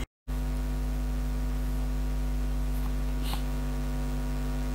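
Steady electrical mains hum with a buzz of evenly spaced overtones and a faint hiss, after a brief dropout to silence at the very start. One or two faint soft ticks come around the middle.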